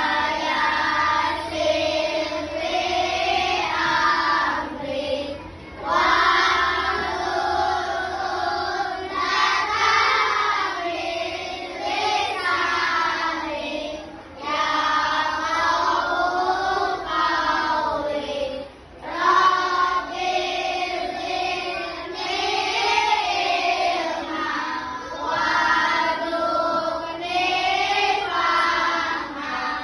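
A group of children singing together in sung phrases of a few seconds each, with short breaks between phrases.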